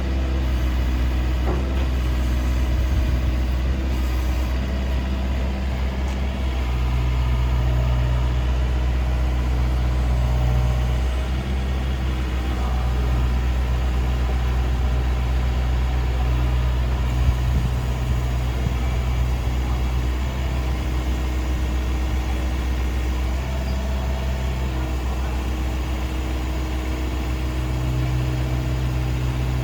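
Takeuchi TB250 mini excavator's diesel engine running steadily, its note shifting a little every few seconds.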